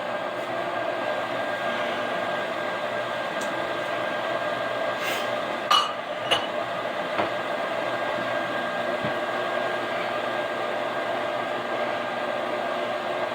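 Microwave oven running with a steady hum while spaghetti cooks in water inside it. Two short clinks about halfway through, a utensil against a dish.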